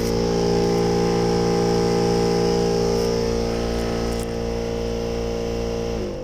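Skoda Octavia A5's air-conditioning blower fan run up to high speed, giving a loud, steady droning hum that winds down about six seconds in. The noise comes from small leaves that have got into the blower housing.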